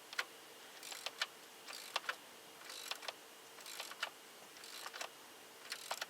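Ratchet wrench turning the serpentine belt tensioner bolt tight: a quick run of pawl clicks on each back-swing, then a sharp click, repeating about once a second.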